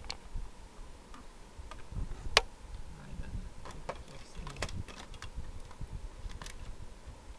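Scattered light clicks and knocks from handling the plastic parts of an opened inkjet printer, the loudest about two and a half seconds in and a quick run of them a little later, over a low rumble of handling noise.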